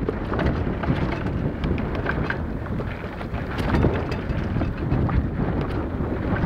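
Wind buffeting the microphone of a mountain bike moving fast down a dirt singletrack, with frequent short clicks and rattles from the bike jolting over the bumps.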